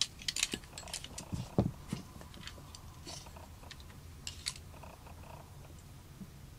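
Scattered light clicks and taps of small hard objects being handled, busiest in the first two seconds with a duller thump near the end of that stretch, then a few isolated clicks.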